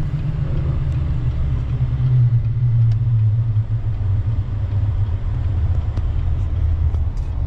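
Pickup truck driving slowly on a snowy road, heard from inside the cab: a steady low engine and road rumble, somewhat louder a couple of seconds in.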